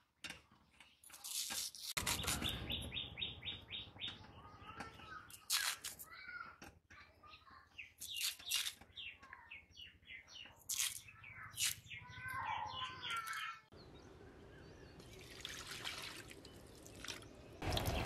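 Sharp clicks of raw potato being cut into chunks on a boti's curved iron blade, with small birds chirping. About two-thirds through the clicks give way to a steadier hiss.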